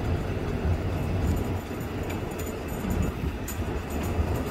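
Low rumble of city street traffic, with a few faint clicks around the middle.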